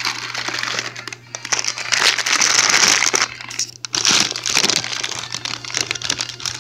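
Plastic packing bag crinkling and rustling as it is handled and pulled open, in a few loud bouts, the longest about two seconds in.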